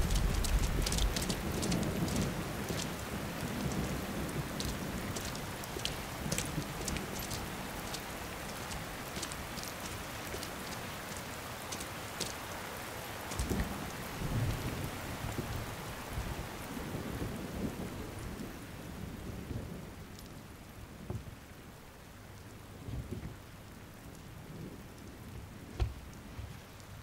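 Heavy rain pouring down, with low rolls of thunder. The rain is loudest at first and gradually fades away.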